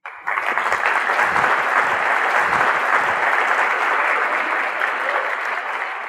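Audience applauding, starting suddenly and holding steady, easing off slightly near the end.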